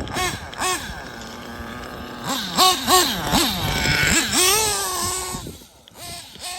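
The nitro engine of a Kyosho Inferno NEO ST 3.0 RC truggy revs up and down in quick blips. It then rises to a steady high note and backs off sharply about five and a half seconds in.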